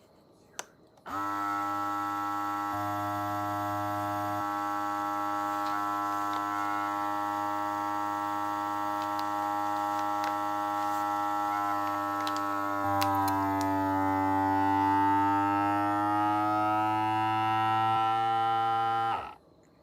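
Cordless vacuum sealer's pump motor running after a button click, a steady whine. In the last several seconds its pitch dips and then climbs as the bag is drawn down, and it cuts off suddenly near the end.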